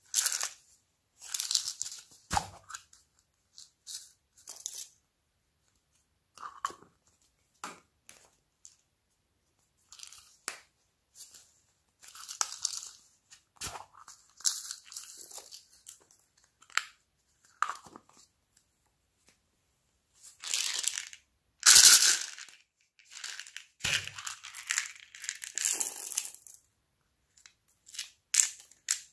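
Hands squeezing and pulling foam slime and handling small plastic cups of beads: irregular short bursts of crackling and tearing with brief quiet gaps between, one burst near two-thirds of the way through louder than the rest.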